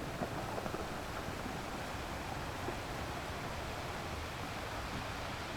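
Ocean surf washing against rocks: a steady, unbroken rush of wave noise with no single distinct crash.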